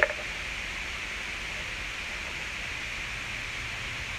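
Steady hiss of outdoor background noise, with one short sharp sound right at the start.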